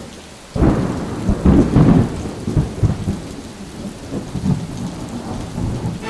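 Thunder: a sudden loud rumble about half a second in, rolling on and slowly fading, over a faint hiss of rain.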